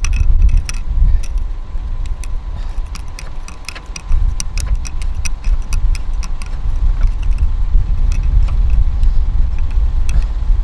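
Screw-in metal tow eye being threaded into the front tow-hook socket of an Alfa Romeo Giulia Quadrifoglio: irregular small metallic clicks and rattles, over a heavy, uneven low rumble.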